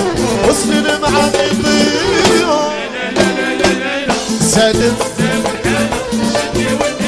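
Moroccan chaabi music in an instrumental passage: a gliding, ornamented melody line over steady hand percussion.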